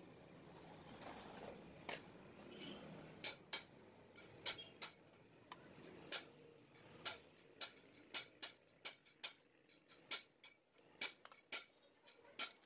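Irregular sharp clicks and light taps, about two or three a second, coming thicker after about three seconds: hand tools working on the metal parts of a Yamaha RS100 two-stroke engine during reassembly.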